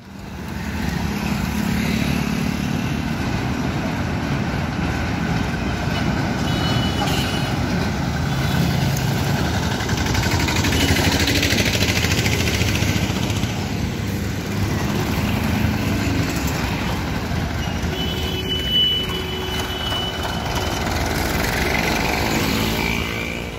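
Mixed road traffic running through an underpass: motorcycles, trucks and auto-rickshaws passing with a steady engine rumble. Two brief high tones sound, about a quarter of the way in and again past the middle.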